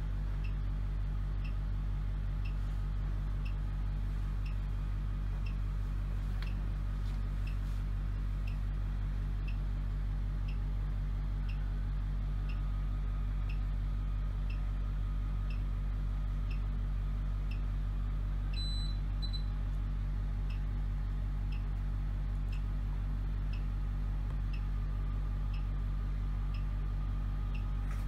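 Therapy laser unit beeping steadily while it emits, with short high pips about three every two seconds over a steady low hum. A brief two-tone beep comes about two-thirds of the way through.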